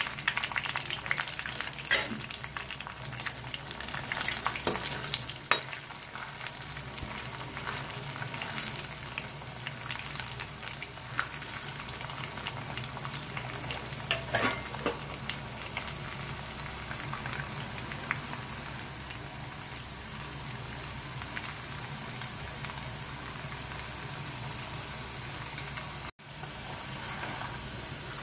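Thin-cut French fries deep-frying in hot oil in a wok: a steady sizzle full of sharp pops and crackles, busiest in the first half. Near the end a slotted metal spatula stirs them.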